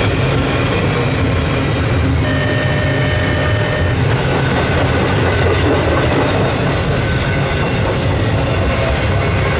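CSX intermodal freight train's double-stack container cars rolling steadily past, a continuous loud rumble and clatter of steel wheels on the rails. A thin steady whine sits on top for a couple of seconds about two seconds in.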